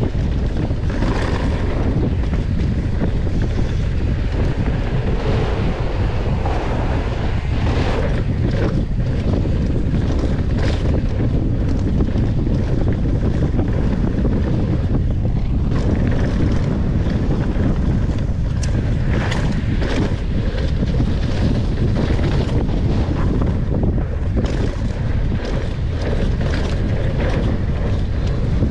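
Wind rushing over the action camera's microphone at downhill mountain-bike speed, a heavy rumble throughout, with frequent knocks and rattles from the bike over rough ground.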